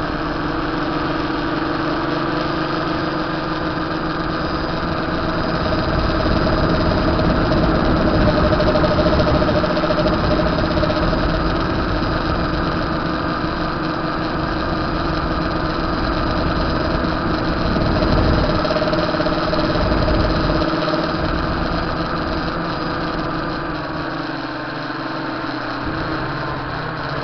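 Electric tricopter's motors and propellers droning steadily in flight, the pitch wandering slightly as the throttle changes, over a low rumble that comes and goes.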